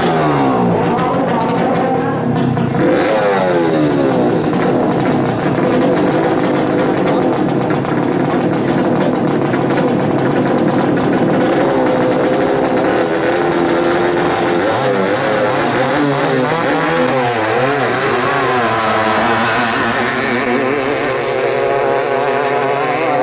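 Engines of two small single-seat racing boats revving hard, their pitch sweeping up and down, then running at full throttle as the boats race. The sound starts abruptly and stays loud throughout.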